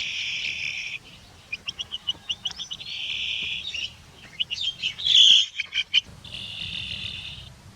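High-pitched animal calls: shrill screeches about a second long, three times, alternating with quick runs of short chirps, the loudest of them about five seconds in.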